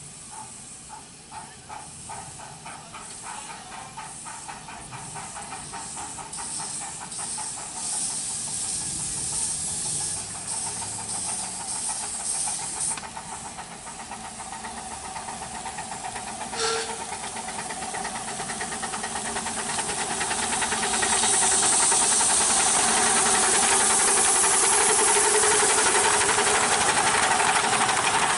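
Miniature steam locomotives working a passenger train: rhythmic exhaust chuffs and hissing steam. The sound grows steadily louder as the train comes closer, ending in a loud steady hiss as it runs past.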